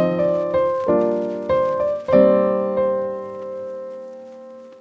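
Background piano music: a few chords struck in the first two seconds, the last one held and slowly fading away.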